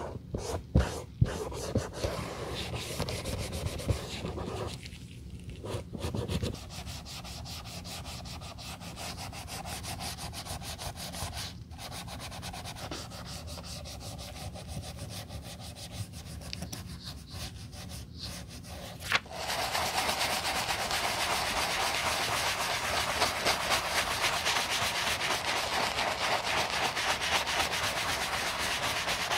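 Close-up rubbing and scraping on a white leather sneaker, with a few sharp clicks at the start. About two-thirds of the way in it turns into louder, fast, steady scrubbing as a bristle brush works foamy cleaner over the leather upper.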